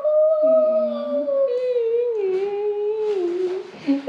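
Children's voices holding a long cheering "woooo", the pitch sliding slowly downward, with a second, lower voice joining briefly about half a second in.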